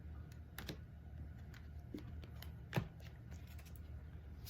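Oracle cards being shuffled and handled: scattered soft clicks and taps, with one sharper tap about three seconds in.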